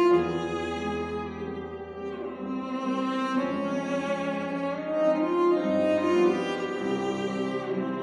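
Cello and Steinway grand piano playing classical music together, the cello drawing long bowed notes over the piano, with a low note held through about the first two seconds.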